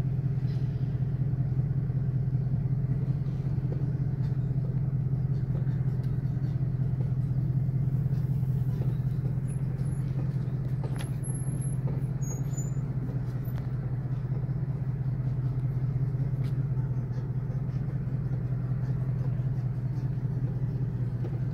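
Car driving over a bumpy road, heard from inside the cabin: a steady low engine and road hum with a few faint knocks and rattles from the bouncing.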